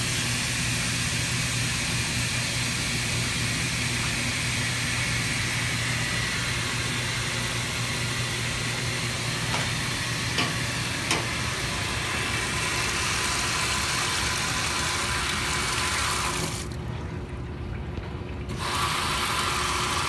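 Water pouring in steadily as a Speed Queen top-loading washing machine fills its tub at the start of a wash cycle. The rush thins out for about two seconds near the end, then comes back.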